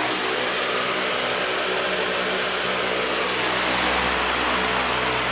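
Dayton metal fan running on high, its blades pitched up to load the motor: a steady rush of air with a faint motor hum underneath. A deeper low rumble comes up about four seconds in.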